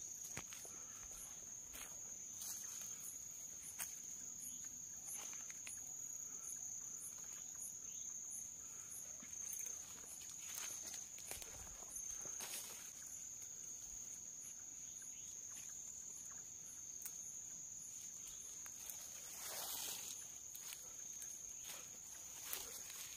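Night insects calling: a steady high-pitched trill that never breaks, with a second insect pulsing regularly above it. A few faint rustles of movement through undergrowth come and go.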